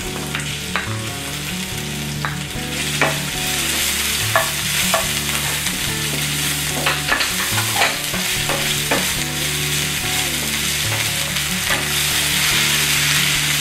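Ginger, garlic and green chilli paste sizzling in hot oil with ajwain and cumin in a ceramic-coated frying pan, while a wooden spatula stirs it, scraping and tapping against the pan at irregular moments. The sizzle grows a little louder toward the end.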